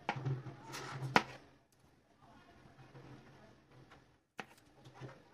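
Kitchen knife slicing soft banana on a plastic cutting board: a few sharp taps of the blade hitting the board. The loudest tap comes about a second in, then a quiet stretch, then more taps near the end.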